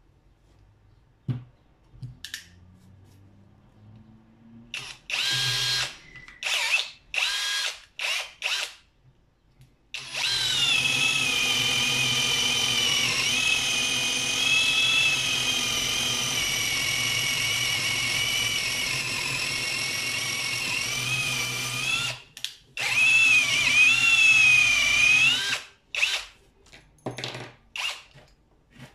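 Komson brushless cordless drill running free: several short trigger pulls, then one long steady run of about twelve seconds, then a run whose pitch dips and rises with the trigger, and more short bursts near the end. A couple of light clicks come in the first few seconds.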